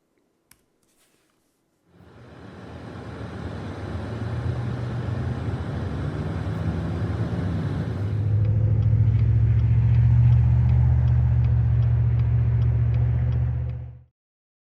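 A loud, low mechanical rumble with a steady hum. It starts abruptly about two seconds in and builds, gets louder again about eight seconds in, then cuts off suddenly near the end.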